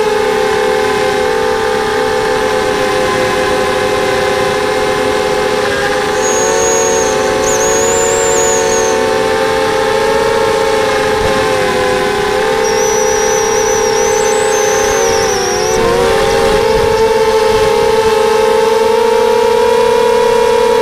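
Brushless motors and propellers of a QAV250 racing quadcopter, heard from its onboard camera: a loud, steady whine that holds its pitch, dipping briefly about three quarters of the way through as the throttle changes. A faint high whistle comes in twice in the middle.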